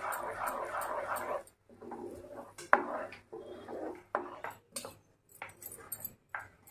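A dog barking for the first second and a half, then several sharp, irregular clinks of a spoon against the pan as cardamom powder is worked into the hot sugar syrup.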